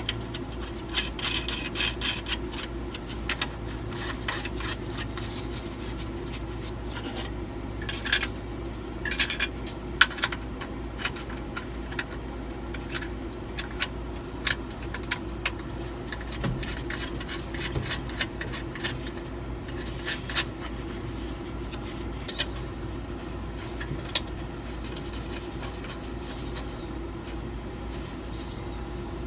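Scattered light metallic clinks, scrapes and rattles as a nut and lock washer are handled and fitted onto an airbag's threaded mounting stud with hand tools, over a steady low hum.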